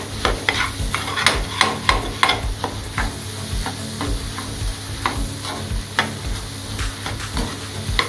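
Metal spatula scraping and clinking against a metal kadai, two to three strokes a second, as a ridge gourd and egg stir-fry is stirred, with frying sizzle underneath. The egg is being stirred until it cooks dry.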